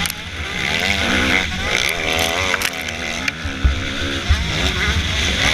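Motocross bike engine revving up and down as the rider accelerates and shifts on a dirt track, with a hiss of wind on the camera microphone. A few low thumps come in the second half as the bike runs over bumps.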